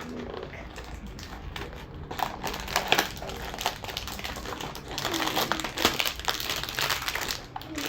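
Packaging of a small LEGO box crinkling and rustling as it is opened and handled: a stream of small, irregular crackles.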